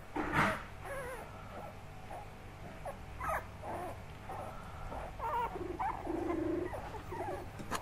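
A litter of young puppies play-wrestling, giving scattered short whimpers and squeaks, with a brief low grumble about six seconds in.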